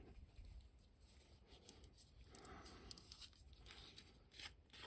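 Near silence: room tone with a few faint, scattered small clicks of handling.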